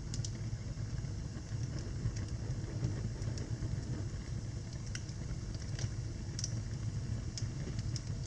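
Wood fire burning in a fireplace: a steady low rumble of flames with scattered sharp crackles and pops, most of them in the second half.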